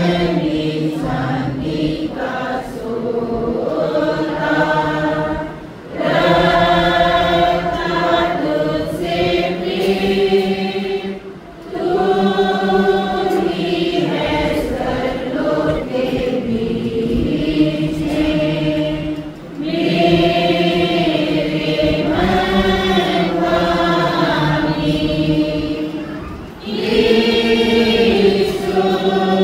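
A church congregation singing a Hindi hymn together with the pastor, in long sung phrases of several seconds with short breaks between them.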